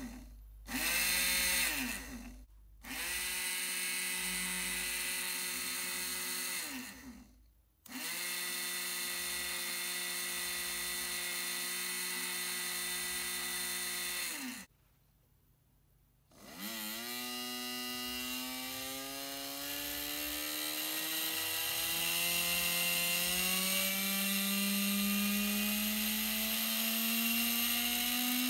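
Small brushed DC motor from a drill, coupled to a drain-pump magnet rotor, whining as it spins. It starts and stops three times at a steady pitch as the battery leads are touched and released. After a pause of about two seconds it starts again and rises steadily in pitch as its supply voltage is turned up.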